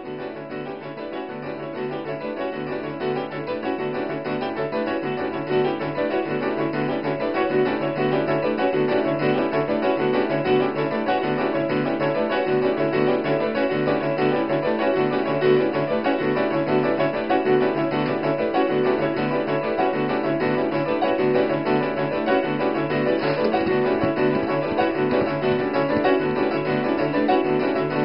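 Piano music: a low note repeated about once a second under sustained higher notes, growing louder over the first several seconds.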